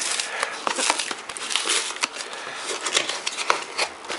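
A cardboard mailing box being torn open by hand, with sticky packing tape and paper ripping and crinkling in a quick, irregular run of short rips.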